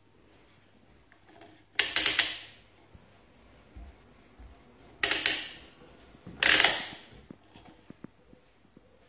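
The adjustment parts of an EVOLAND magnetic foldable exercise bike being worked by hand: three short bursts of quick clicking and rattling, about two, five and six and a half seconds in, each fading away within about half a second.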